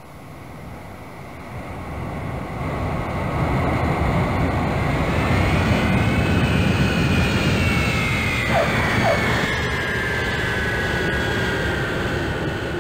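Jet aircraft flying over: the engine noise swells over the first few seconds and stays loud, with a whine that climbs and then falls in pitch as the plane passes.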